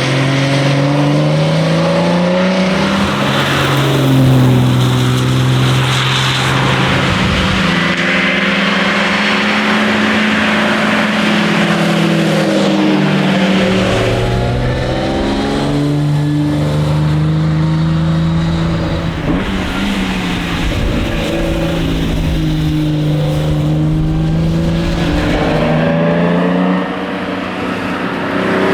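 1961 Austin-Healey 3000 Mk 2's straight-six engine driven hard through the gears. Its pitch climbs under acceleration, then drops at each gear change, several times over.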